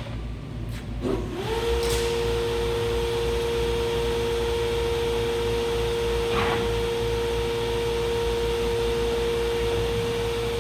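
Hydraulic pump and electric motor of a Durmazlar CNC HAP 2060 S hydraulic press brake starting up. A few clicks come first; about a second in, the pump rises quickly to a steady whine over a low hum, then runs on evenly.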